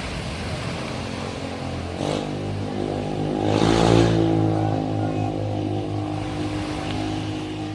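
A motor vehicle's engine passes close by, getting louder to a peak about four seconds in and then fading, over the steady wash of surf.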